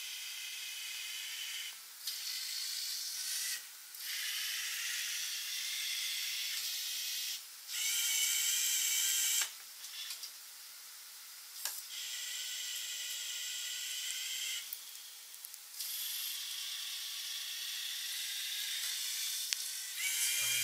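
Electric motors of a chain-driven robot arm whirring in a series of bursts, each one to four seconds long with short pauses between, as the arm moves checker pieces and carries a captured piece off the board. It is a high-pitched whine over a hiss.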